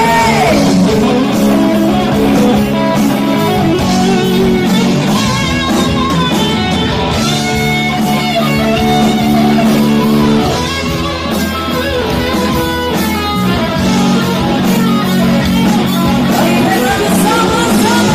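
Live band playing amplified rock-style music: electric guitar through a Blackstar stack amplifier, bass guitar and drums. A woman is singing into a microphone near the end.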